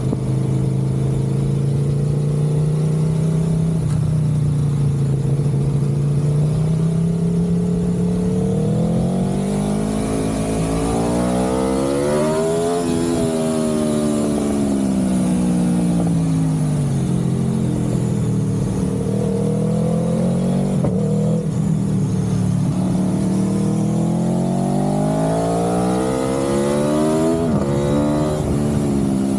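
A vehicle engine running steadily under way. Its pitch rises slowly to a peak about halfway through, falls back, rises again, and drops suddenly near the end.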